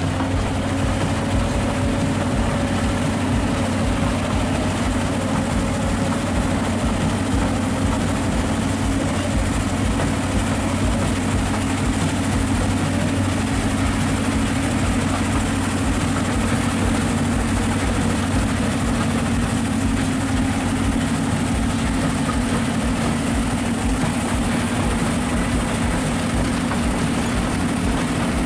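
Large mining bulldozer's diesel engine running steadily with a deep, even hum and no sharp changes in pitch.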